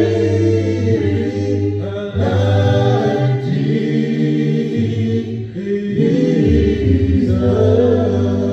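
Male vocal group singing a cappella in close harmony, several voices holding chords over a deep bass part, with brief breaks between phrases.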